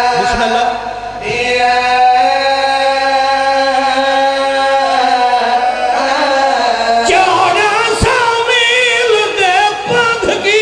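Men singing a slow devotional chant together over microphones, holding long notes for about seven seconds, then moving into a wavering, ornamented line.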